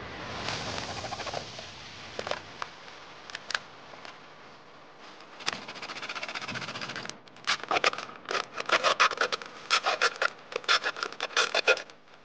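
A thin metal blade cutting through a plastic PET bottle: scattered scrapes and crackles of the plastic at first, then rapid back-and-forth sawing strokes, about three or four a second, from about seven seconds in.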